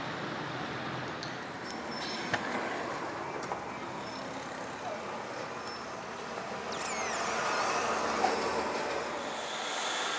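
Steady hiss and rumble of vehicle and traffic noise, with a few faint clicks.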